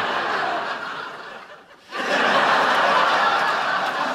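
Sitcom studio audience laughing. The laughter dies away about a second and a half in, then a second wave breaks out sharply about two seconds in.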